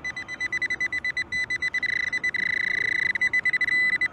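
Metal-detecting pinpointer (Nokta AccuPoint) beeping as it homes on a coin in a dug plug of soil: a high-pitched beep pulsing rapidly, running into an almost steady tone in the middle, then cutting off near the end.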